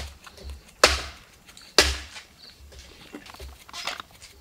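Kitchen knife striking a wooden chopping board while green chillies are slit open: a light knock at the start, two sharp, loud chops about a second apart, then a few lighter taps.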